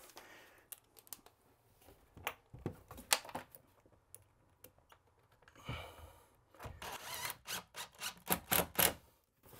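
Scattered clicks and knocks of hands and tools working on a shower base, ending in a quick run of sharp taps, about four a second, over the last three seconds.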